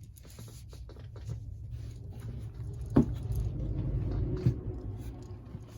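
Tarot cards being handled and drawn from the deck: rustling and small clicks, with a sharper snap about three seconds in.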